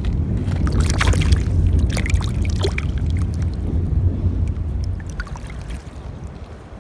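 A train rumbling across a bridge overhead, fading away over the last couple of seconds, with small splashes and trickles of river water as fingers rinse mud off a small lead seal.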